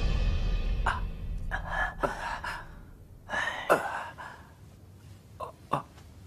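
A man's short pained gasps and breaths, several in a row, as a bloodied leg wound is dressed. Music fades out in the first two seconds.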